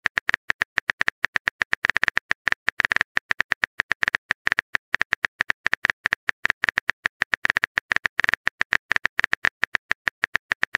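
Smartphone keyboard typing sound effect: a rapid, even stream of short key clicks, about eight to ten a second, as a text message is typed out letter by letter.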